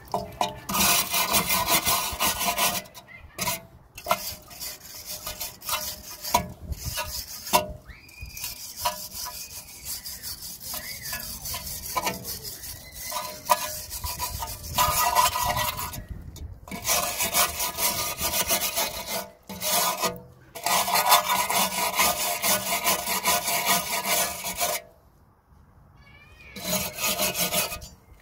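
Brass wire brush scrubbing the rusty steel of a rear brake backing plate and wheel hub, cleaning off rust. The scraping comes in runs of a few seconds with short pauses between them.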